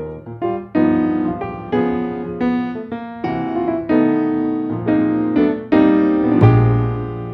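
Background piano music: a melody of separate struck notes, each fading after it sounds.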